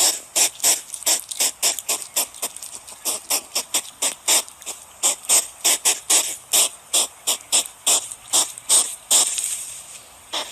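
An animal calling with rapid, short, high-pitched chirps, about three or four a second, tailing off into a fainter hiss near the end.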